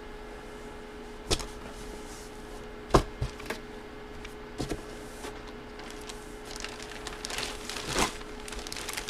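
Handling of boxes and packaging on a table: scattered knocks and clicks, with a spell of rustling near the end, over a steady faint hum.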